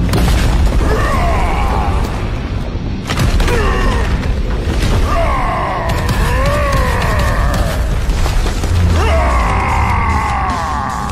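Dramatic film music over a deep booming rumble, with about three long roars from a giant ape that slide up and down in pitch.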